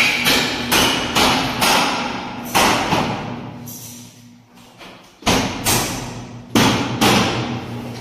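Repeated sharp knocks, about two a second, with a quieter stretch of a second or two around the middle before they resume hard.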